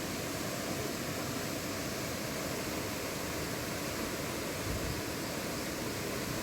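Steady rush of a waterfall: an even hiss of falling water with no breaks or distinct events.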